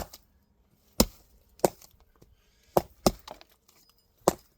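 Axe blows chopping into wood: about six sharp strikes at uneven intervals.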